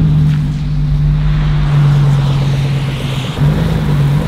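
Pickup truck engine running steadily while driving, an even low drone that dips briefly and picks back up about three seconds in.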